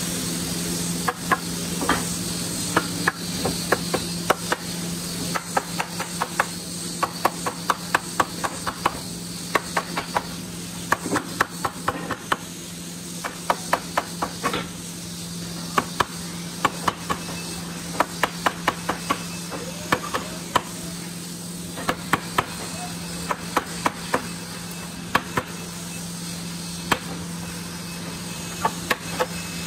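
Quick bursts of sharp tapping blows on wood, several a second, with short pauses between bursts, over a steady low machine hum.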